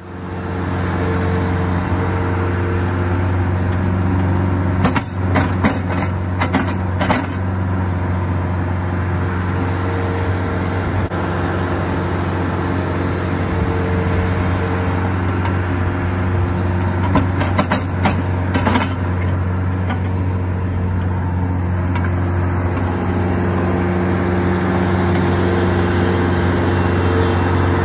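Bobcat compact track loader's diesel engine running steadily as it works a hydraulic post-hole auger into frozen ground. A few sharp clicks and knocks come through twice, about five seconds in and again about seventeen seconds in.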